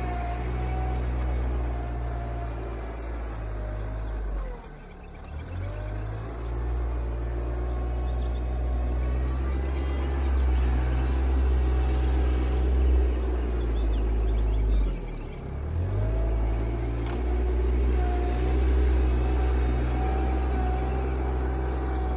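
RK24 compact tractor's engine running steadily with a whine above it. Twice, about four seconds in and again about fifteen seconds in, the engine note drops briefly and comes back up.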